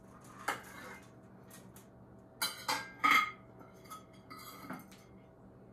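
Utensils clinking and scraping against a plate as a stuffed fish fillet is slid off with a spatula: a few scattered sharp clinks, the loudest about three seconds in, with a brief ring after it.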